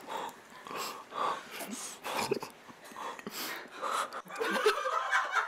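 Stifled laughter and breathy chuckles close to the microphone, with a few short clicks, growing louder near the end.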